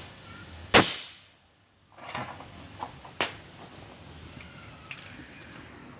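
A single loud, sharp knock less than a second in that dies away over about half a second, followed by a few small clicks and taps.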